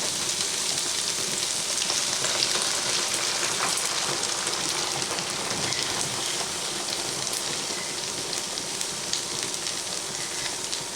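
Chicken pieces sizzling steadily in oil in a frying pan, with scattered small crackles.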